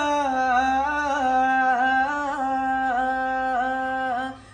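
A man singing an Urdu naat unaccompanied, holding one long note with small wavering ornaments, which breaks off near the end.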